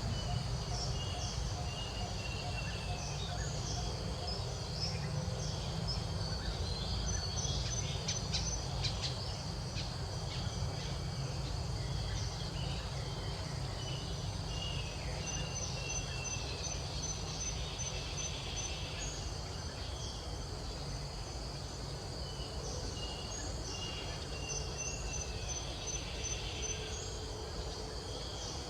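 Outdoor insect chorus, a steady high-pitched buzzing and trilling, with short bird chirps now and then over a steady low rumble. A few clicks come about eight seconds in.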